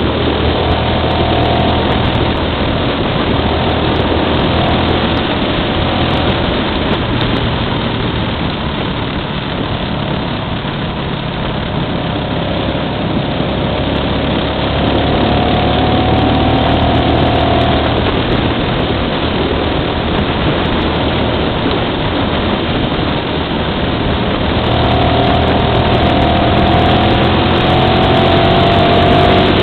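Motorcycle engine running at road speed, heard from the bike itself under heavy wind rush on the microphone. A higher engine tone rises gently about halfway through and again near the end.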